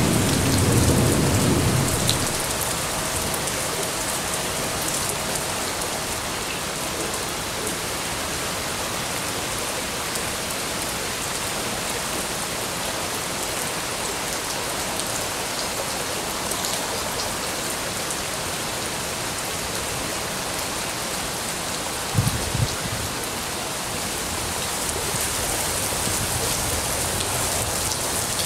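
Heavy summer monsoon rain pouring steadily onto leaves and foliage. A low thunder rumble dies away in the first two seconds, and a brief low double thump comes about 22 seconds in.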